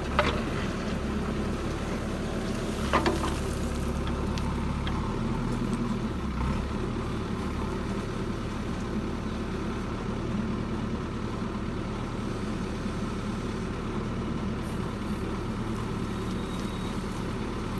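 Heavy diesel machinery engine running steadily at a low hum, with a couple of brief knocks near the start and about three seconds in.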